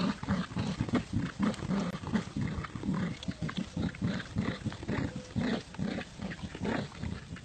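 Dogs growling during a game of tug-of-war over a toy, a fast, uneven string of short low growls.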